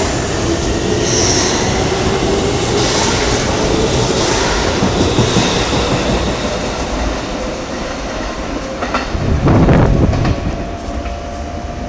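Keikyu 800-series electric train pulling away, its motor whine rising in pitch over the clatter of wheels on the rail joints, easing off as the train draws away. A brief loud rumble comes about nine and a half seconds in.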